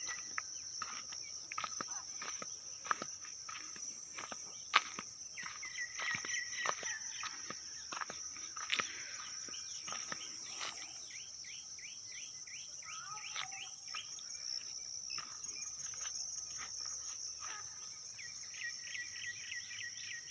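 Birds chirping in short calls and quick repeated series over a steady high-pitched drone of insects, with one sharp click about five seconds in.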